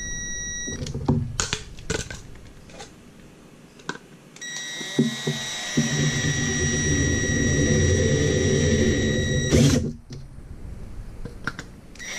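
Cordless drill-driver running as it drives screws to fasten relays to a metal bracket: a steady motor whine that stops after a moment, a few clicks of handling, then a longer run of about five seconds that stops suddenly.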